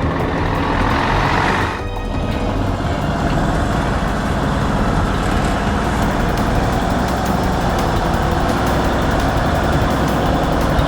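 Steady vehicle engine noise over background music, briefly dipping about two seconds in.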